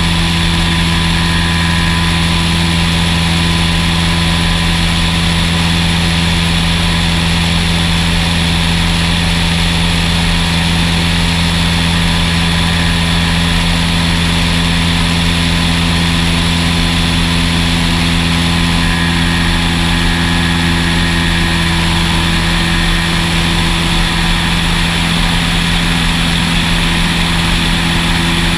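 Cessna 172 SuperHawk's piston engine and propeller droning steadily in flight, holding one even pitch throughout.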